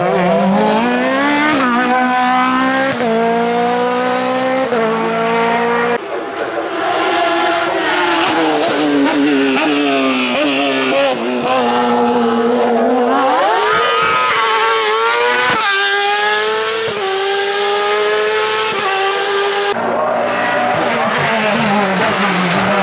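Hill-climb race car engines at full throttle, the note climbing in steps as the drivers shift up and dropping away as they brake and change down for the hairpin. An open sports prototype and a closed racing car take turns.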